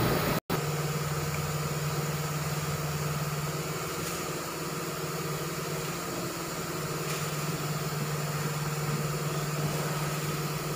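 Steady mechanical hum from a running motor or engine. The hum cuts out for an instant about half a second in.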